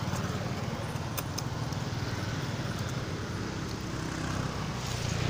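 Steady low engine rumble, like a motor vehicle running close by, with a few faint clicks.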